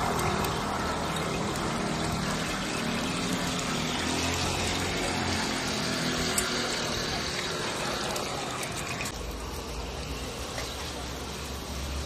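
Pan-fried buns (shuijianbao) frying in a pot of hot oil: a steady, dense sizzle that thins out about nine seconds in. A low hum runs underneath.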